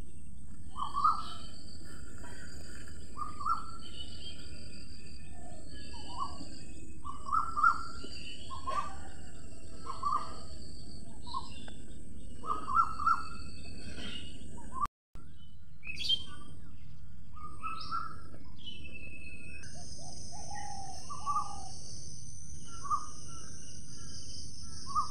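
Wild birds calling and chirping in short repeated calls over a steady high insect drone. The sound drops out for an instant about fifteen seconds in, and a second, lower insect drone joins a few seconds later.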